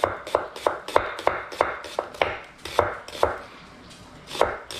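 A Shun dual-steel Damascus chef's knife slicing an onion on a wooden cutting board: a steady run of sharp knocks, about three a second, as the blade strikes the board. There is a short pause, then two more strikes near the end.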